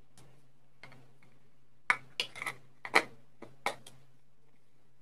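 Sharp clicks and taps of a face-cream jar and its lid being handled, several scattered ones, loudest about two seconds in and again about three seconds in, over a faint steady low hum.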